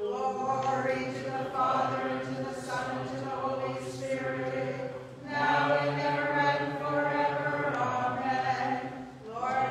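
Unaccompanied Byzantine liturgical chant, voices singing long sustained phrases with a short break about five seconds in and another near the end.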